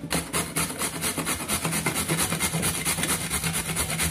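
A carrot rubbed up and down a metal box grater, a fast run of rasping strokes, about five or six a second.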